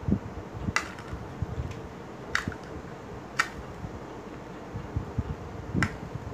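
Small handling sounds as scissors snip a balloon and fingers ease it out of a set chocolate cup: four sharp clicks spaced unevenly over several seconds, over low rustling and light bumps.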